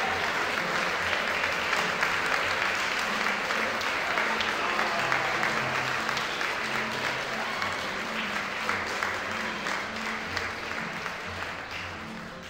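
A crowd of wedding guests applauding, a dense patter of many hands clapping, with instrumental music playing underneath. The applause slowly fades near the end.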